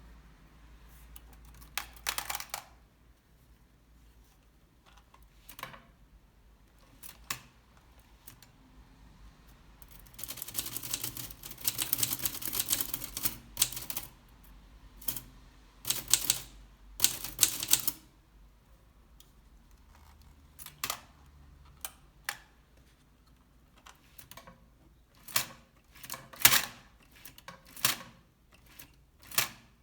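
1920 Remington Portable typewriter being worked: its keys strike in irregular mechanical clacks, with a dense run of rapid keystrokes about ten seconds in and a few single loud strikes near the end.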